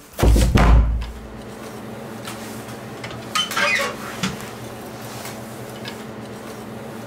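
Horror-film sound design: a deep, loud boom just after the start, then a steady low drone, with a short metallic clatter and a click about halfway through.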